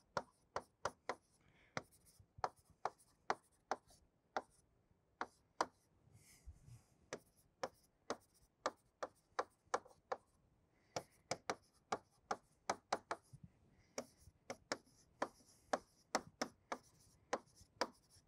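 A pen writing by hand on a wall-mounted writing board. Its tip gives a run of sharp taps, a few a second, with faint scratchy strokes in between as the letters are drawn.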